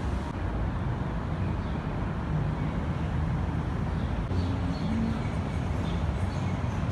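Steady low rumble of road traffic with a faint engine hum.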